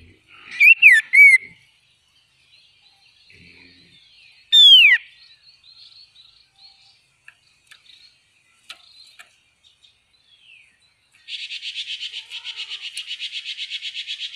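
Red-faced liocichla singing: two loud, curving whistled notes about a second in, then one long whistle sliding sharply down in pitch near five seconds in, with a few faint chips between. From about eleven seconds a fast, steady pulsing buzz sets in.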